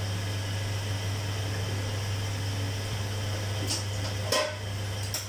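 A steady low hum with a hiss, typical of a kitchen appliance or fan running, broken near the end by a few short knocks, the loudest about four seconds in.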